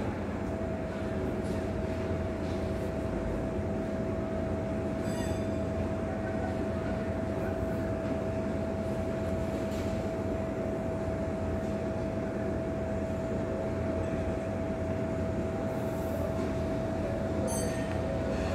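Steady mechanical drone with a constant whine held at one pitch and an even low hum underneath.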